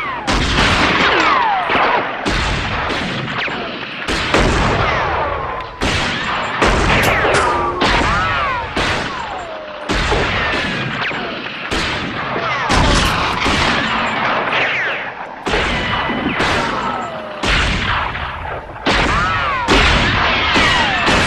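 Spaghetti-western-style gunshot sound effects: a shot every second or two, many followed by a falling, whining bullet ricochet.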